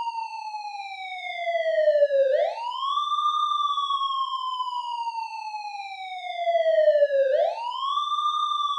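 Civil-defence warning siren sounding an air-raid alert: a single wailing tone that climbs quickly, then slowly sinks over several seconds, rising twice.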